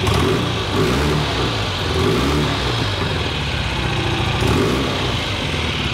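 1965 BSA Lightning Clubman's 650 cc parallel-twin engine running, blipped on the throttle by hand so the revs rise and fall several times.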